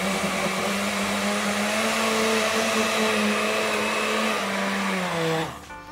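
Blender running at maximum power, puréeing hot cooked cauliflower with butter and cream in its jar. The motor's steady hum drops in pitch and stops near the end as it is switched off.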